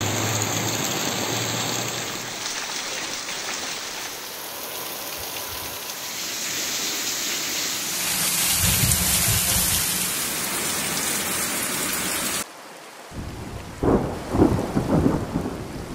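Heavy downpour: a steady, dense hiss of rain pouring onto a flooded street and roofs, changing abruptly a couple of times as clips cut. About twelve seconds in it drops to quieter rain, and several low thunder rumbles follow near the end.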